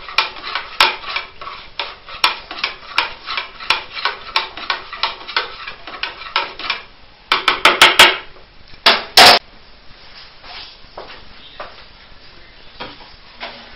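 A spoon stirring in a plastic measuring jug: quick light clinks against the sides, several a second, as sulphite powder dissolves in lukewarm water. About seven seconds in come a quick run of sharper knocks, then two loud knocks a second later, after which it goes quiet.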